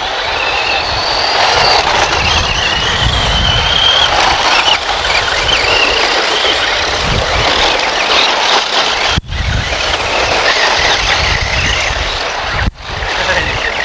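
Several electric radio-controlled off-road racing cars running on a gritty track: high motor and gear whines rising and falling in pitch over a steady hiss of tyres on grit. The sound drops out for an instant twice near the end.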